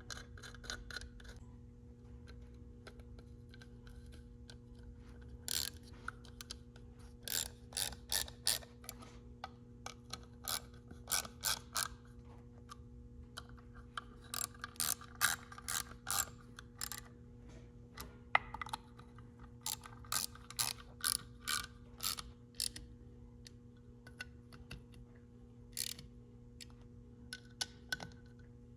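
Small hand ratchet clicking in short runs of rapid clicks, several times, as the small E-Torx screws holding a BMW S54 VANOS solenoid pack are threaded in and snugged down. A faint steady low hum runs underneath.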